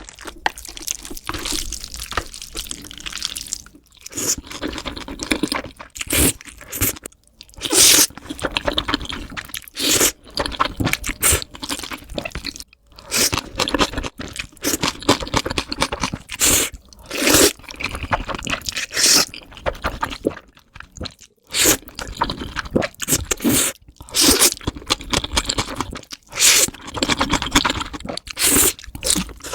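A person eating spicy noodles and kimchi: wet slurping and crunchy chewing in repeated, irregular bursts.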